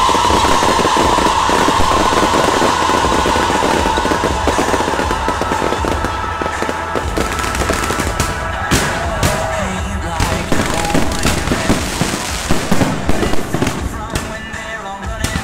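Fireworks going off in a dense, continuous crackle of launching shells and spark fountains, with sharp separate bangs from about eight seconds in. Music plays along underneath.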